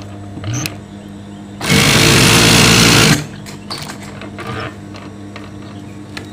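Industrial high-speed lockstitch sewing machine run at full speed for about a second and a half, then cut off abruptly as the pedal is pressed back to brake it. A steady low hum lies underneath, and light clicks and rustles of fabric being handled come after.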